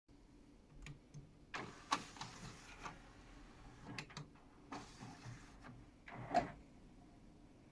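Handling of a Sony FST-ZX100D mini hi-fi's CD section: a string of clicks, knocks and short sliding noises, with the sharpest knocks about two seconds in and again near the end, as of the disc tray and discs being worked.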